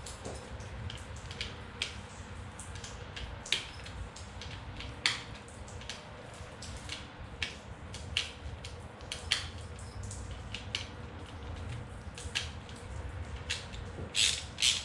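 Irregular short clicks and taps, roughly one a second, from hand tools working a bolt on a heavy jumper cable clamp, over a low steady hum.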